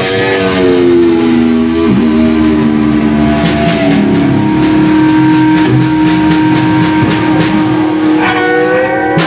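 Rock band jamming: electric guitar holding long notes that slowly bend in pitch. From about three and a half seconds in, cymbals join in a loose, steady rhythm.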